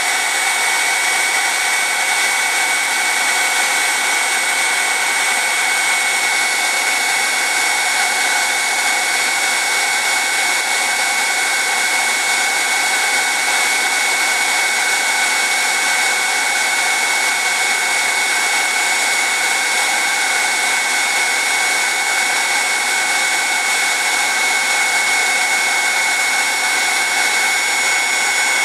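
Electric heat gun running steadily, its fan blowing with a constant high whine over the rush of air.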